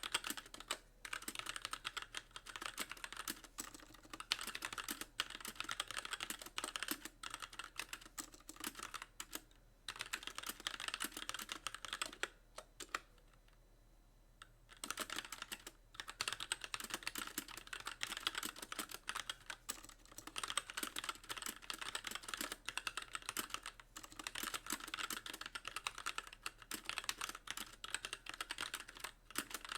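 Fast, steady typing on a mechanical keyboard with light linear Gateron Clear switches and stock keycaps, each key bottoming out. There is a pause of about two seconds partway through.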